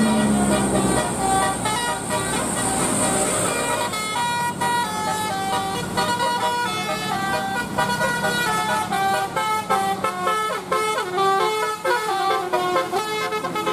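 Indonesian bus 'telolet basuri' melodic air horn playing a tune of quick stepped notes over a running bus.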